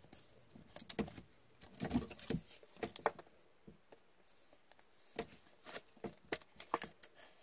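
Scattered light clicks, taps and rustles of plastic as a hockey card and its clear sleeve are handled and fitted into a rigid clear plastic card holder.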